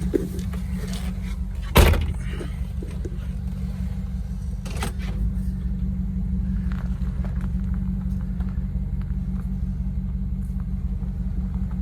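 A car's engine runs at low speed with a steady low rumble as the car is driven down off a trailer. A loud clunk comes about two seconds in, and a lighter knock comes near five seconds.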